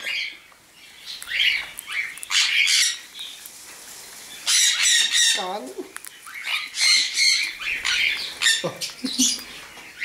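Sun conures screeching: repeated harsh, shrill squawks in separate bursts every second or two.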